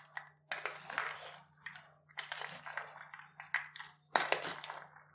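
Two wooden spoons tossing a salad of boiled chickpeas, kidney beans and shredded cabbage in a steel platter: irregular bursts of wet rustling and clicking as the beans are turned over.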